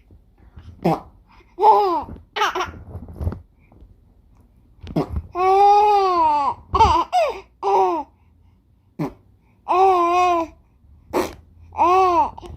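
A four-month-old baby cooing and squealing with laughter: a string of high, drawn-out, rising-and-falling calls with short gaps between them.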